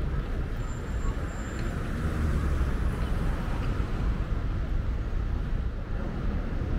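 Steady low rumble of vehicle noise, with no distinct events standing out.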